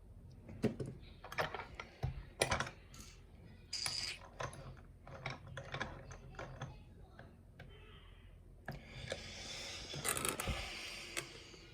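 A challenge lock and lock-picking tools being handled: a run of irregular small clicks and taps, then a longer scraping rustle near the end.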